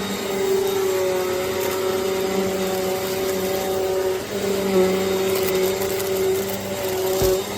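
Eureka NEU10AE5 bagless upright vacuum cleaner running on carpet, its motor holding a steady whine with a slight dip in pitch about four seconds in, and a brief low bump near the end.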